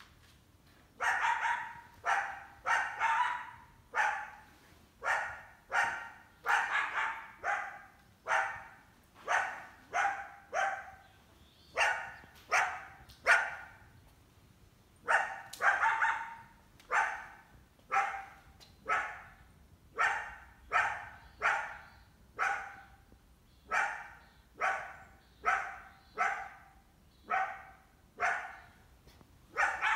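Coyote barking over and over, about one short bark a second, with a brief pause about halfway through.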